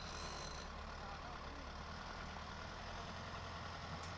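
Engines of stationary trucks and cars idling in a traffic jam, a steady low hum, with a brief hiss in the first half-second.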